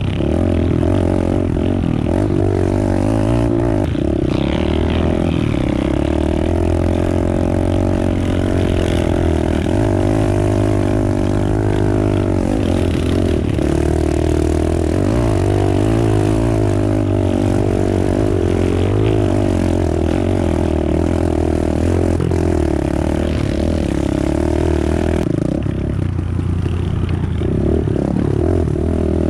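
Pit bike engine heard close up from the bike, working hard up a dirt hill climb, its pitch rising and falling as the throttle opens and closes, easing off a little near the end.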